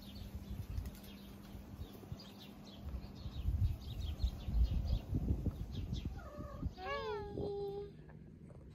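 A domestic cat meows near the end: first a short call, then a longer meow that rises and falls in pitch and trails off. Faint bird chirps can be heard under it.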